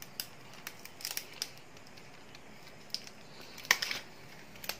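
A cooked, oil-softened banana-leaf parcel being pulled open by hand, the leaf crinkling and crackling in scattered short bursts, loudest about three-quarters of the way through.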